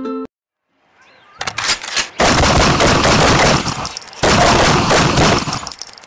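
Rapid automatic gunfire: a few scattered shots about a second and a half in, then two long continuous bursts with a short break just past four seconds.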